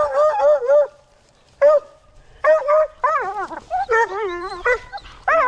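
Hunting hounds yelping and bawling over a downed buck: a quick run of short yips at the start, then repeated bursts of wavering, bending cries through the rest.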